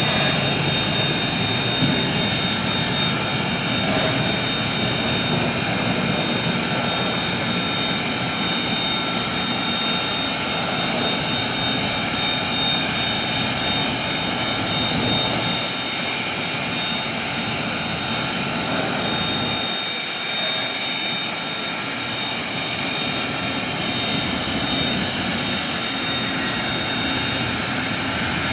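Steady hiss of steam from an idling 0-6-0 tank steam locomotive, with a constant high-pitched whine over it and a low rumble that thins out partway through.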